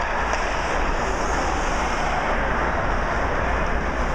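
Steady rushing background noise of an ice hockey arena during play, with a low rumble underneath and no single distinct hit or shout standing out.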